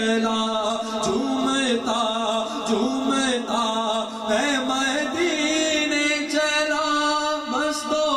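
A solo male voice singing an Urdu naat into a handheld microphone, drawing out long ornamented notes whose pitch glides up and down without a break.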